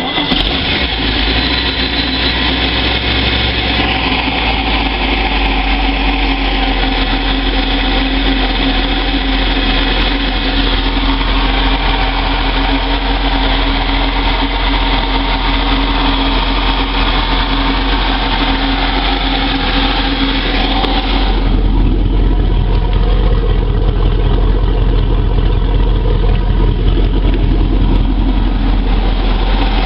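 A Moomba boat's inboard engine runs steadily. No ticking is heard, because its exhaust leak has been repaired. About 21 seconds in, the note changes and turns deeper, with less of the high end.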